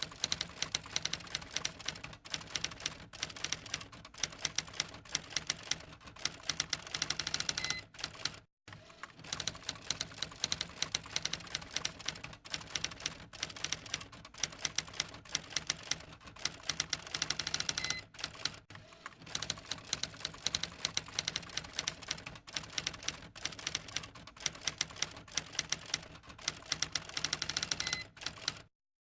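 Typewriter keys clacking rapidly in three runs of about ten seconds each, with a short ding near the end of each run. The sound cuts off just before the end.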